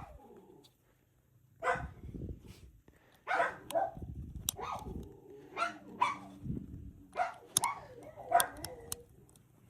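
A dog barking repeatedly: short, separate barks, about ten of them, starting after a brief quiet.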